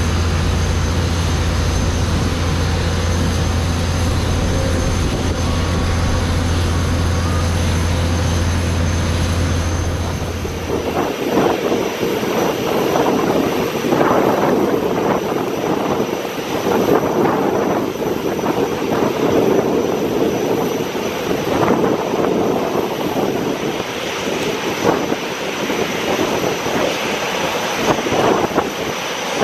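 Jet airliner engine noise. A steady sound with a low hum for about the first eleven seconds changes abruptly to a rougher, fluctuating rumble for the rest.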